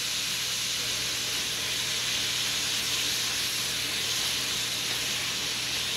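Sliced vegetables with hoisin sauce sizzling in a hot non-stick frying pan, a steady hiss.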